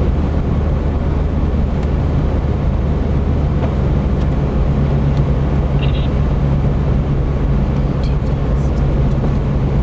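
Steady road noise inside a moving car: a constant low engine drone with tyre hiss on a wet road.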